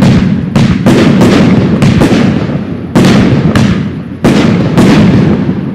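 Professional aerial fireworks shells bursting: a rapid series of about nine loud bangs in under five seconds, each trailing off before the next.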